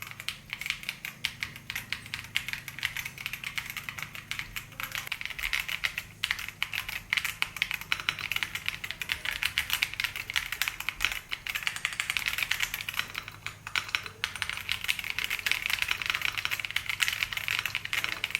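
Fast, continuous typing on a Keychron Q1 Pro mechanical keyboard with K Pro Banana tactile switches: a dense stream of key clacks, growing a little louder about five seconds in.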